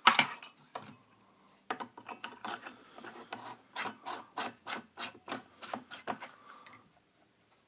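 A sharp knock, then a run of short scraping strokes as the threaded metal parts of a handheld LED flashlight are turned against each other while it is taken apart and put back together.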